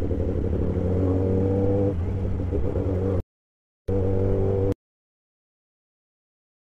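Kawasaki ZX-10R inline-four engine running steadily at low road speed, heard from the rider's seat. The sound cuts to dead silence about three seconds in, comes back for under a second, then cuts out again.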